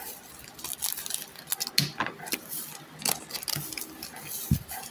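Foil trading-card booster pack wrapper crinkling and being torn open, a dense run of sharp crackles and rustles.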